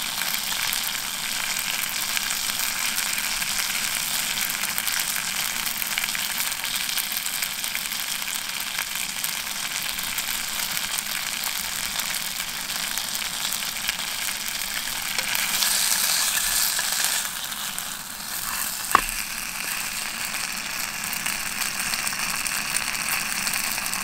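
Food sizzling and crackling in a hot pan or on a grill, a steady hiss that swells briefly and then dips, with one sharp click near the end.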